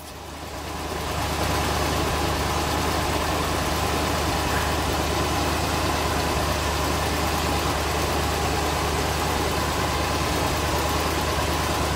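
Truck engine idling steadily, a constant low hum with a hiss over it, fading in over the first second or so.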